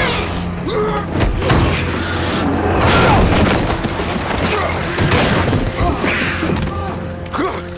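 Sound mix of a TV monster attack: a creature snarling and a man yelling, with heavy thuds and booming hits of a struggle over a low, ominous music score.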